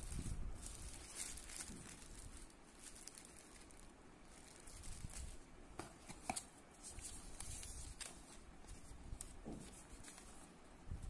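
Unboxing handling noise: a plastic bag crinkling and a cardboard box and paper leaflet rustling, with scattered light clicks and taps.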